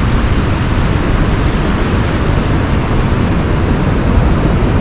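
Steady wind rumble on the microphone over the continuous wash of ocean surf breaking on the beach.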